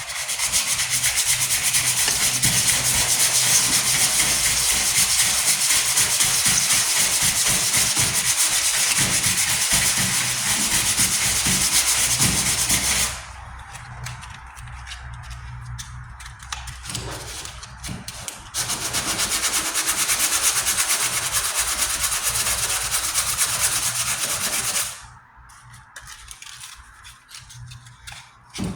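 Sandpaper on a sanding block scratching steadily over a primed body-filler patch on a steel truck tailgate, working 80 grit to take out 40-grit scratches. It runs in two long stretches, the first about 13 seconds and the second about 6 seconds, with a quieter pause between them and another near the end.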